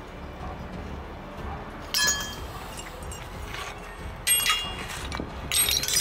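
Pieces of aluminium scrap, finned heat sinks and small cast parts, clinking as they are tossed onto a pile: one clink about two seconds in, another past four seconds, and a quick run of clinks near the end, each with a short metallic ring.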